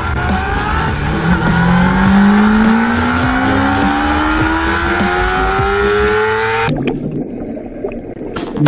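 Motorcycle engine accelerating steadily, its pitch rising slowly for about seven seconds. It cuts off abruptly near the end to a muffled underwater sound.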